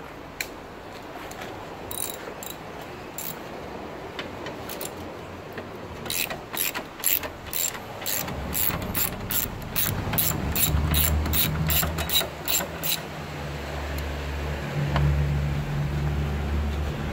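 Hand ratchet on a long socket extension clicking in quick even strokes, about three a second, as a bolt on the radiator and condenser support bracket is loosened. A low steady hum comes in about halfway.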